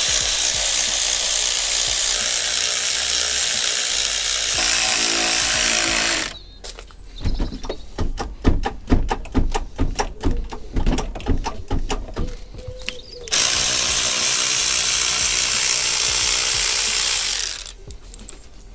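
A power tool runs steadily for about six seconds, undoing the engine mount bolts, its pitch changing a little near the end of the run. About seven seconds of irregular ratcheting clicks follow, then the power tool runs again for about four seconds.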